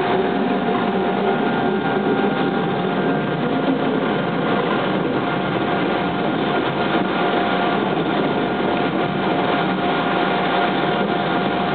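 Steady running noise of a moving train heard from inside the carriage, with a constant high hum over it.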